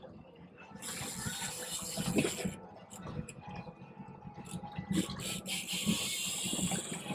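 Sea water lapping and sloshing against a boat's hull, with scattered short clicks and knocks.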